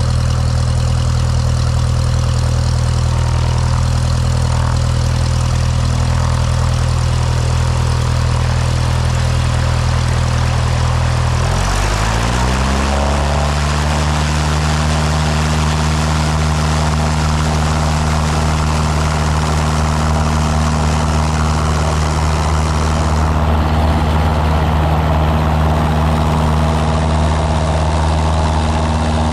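Cessna 172M's four-cylinder Lycoming engine and propeller running steadily at low power. About twelve seconds in, the engine rises in pitch over a second or two as the throttle goes in to full power for the takeoff. It then runs steadily at that higher pitch.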